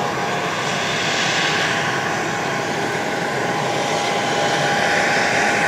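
Jet aircraft engines running: a steady whine over a rushing hiss, growing a little louder toward the end.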